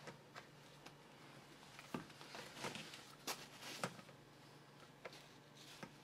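Quiet room with a few faint, sharp clicks and brief rustles, most of them in the middle of the stretch: handling noise. The vacuum cleaner's motor is not running.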